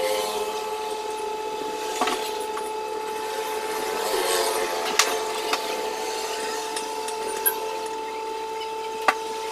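Screwdriver and hand tools scraping and tapping on a power amplifier's heatsinked transistor board. Several sharp clicks stand out, over a steady background hum.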